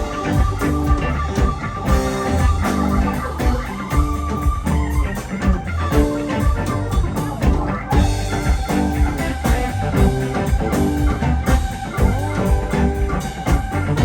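Live rock band playing an instrumental passage: electric guitar and organ over bass and drums with a steady beat.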